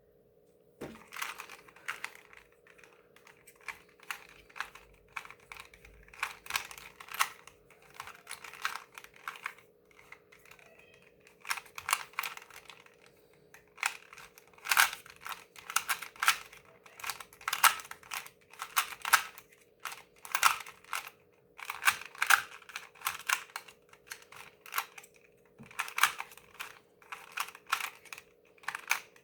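A 2x2 Rubik's cube being turned fast during a timed solve: rapid plastic clicking and clacking in runs, broken by short pauses, over a faint steady hum.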